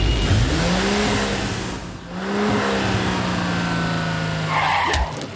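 Cartoon vehicle engine sound effect revving up and holding, dropping briefly about two seconds in, then revving up again and running steadily, over a rushing hiss.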